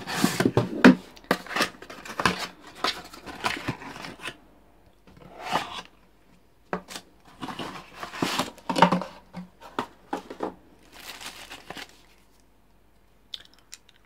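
Cardboard box and paper inserts being handled as items are pulled out during unboxing: irregular rustling, scraping and crinkling, with a few short pauses.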